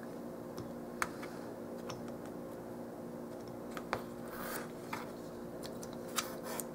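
Craft knife cutting thin black paper on a plastic cutting mat: a few faint sharp clicks and scratches of the blade, over a steady low hum.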